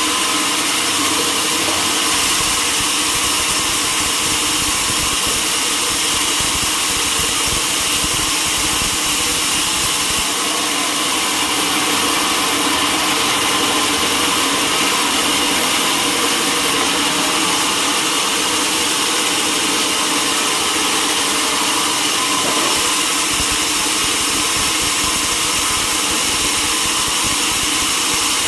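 Sawmill machinery running steadily: a motor's even hum with steady tones over a dense high hiss, without a break.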